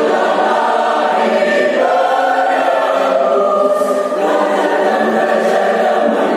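Mixed adult choir of men and women singing in harmony, holding long chords that move to new notes about two seconds and again about four seconds in.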